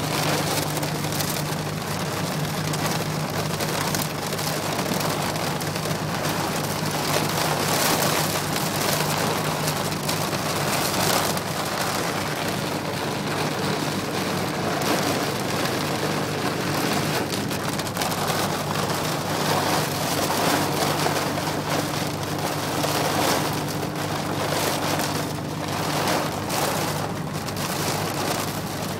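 Heavy rain drumming on the windshield and airframe of a Cessna 402, heard from inside the cockpit as a dense, steady hiss, with a steady low hum underneath.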